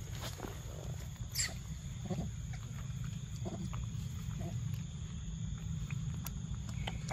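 Young macaque chewing and smacking on ripe mango pulp: small wet clicks and short mouth sounds over a steady low rumble. A brief high chirp falls in pitch about a second and a half in.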